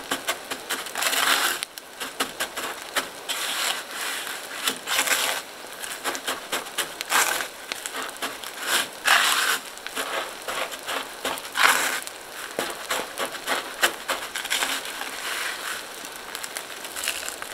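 Dry panko breadcrumbs crunching in repeated short bursts as a venison cutlet is pressed into them by hand, with light crackling ticks between the bursts.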